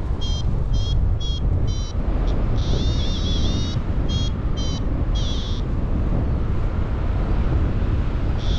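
Wind rushing over the microphone in flight under a paraglider, with a variometer beeping. Short high beeps come two to three a second at first, break twice into a brief warbling tone, and stop for the last few seconds. The beeps signal the glider climbing.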